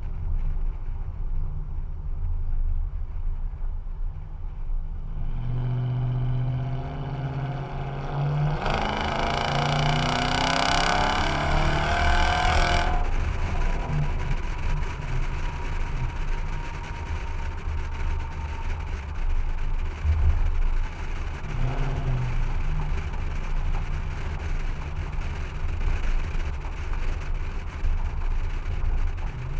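Exhaust of a 2014 Toyota Tundra's 4.6-litre V8 through a stainless straight pipe that replaces the stock muffler: a deep drone while driving, rising in pitch as the truck accelerates for several seconds, then falling away suddenly when the throttle closes, with another short rise later on.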